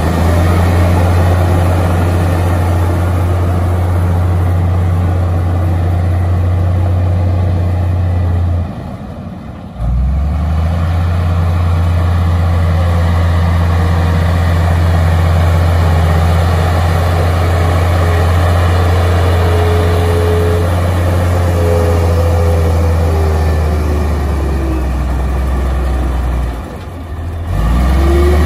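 Crawler bulldozer's diesel engine running hard as the dozer pushes soil with its blade, a steady low engine note. The engine sound drops away briefly twice, about nine seconds in and near the end, then comes straight back.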